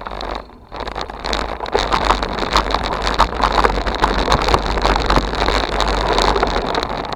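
Wind buffeting a bike-mounted camera during a ride, with a low rumble and many small rattles and knocks from riding over bumpy ground.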